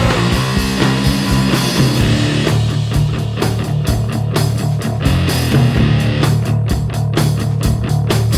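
Grunge punk rock song in an instrumental passage: electric guitars and drums playing loud and steady, with no singing. The drum hits grow denser about three seconds in.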